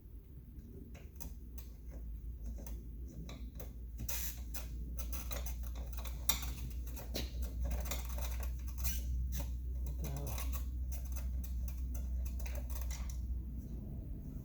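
Quick irregular clicks and scrapes of a small T10 Torx screwdriver and screw working against the plastic of a car side-mirror housing, busiest through the middle stretch.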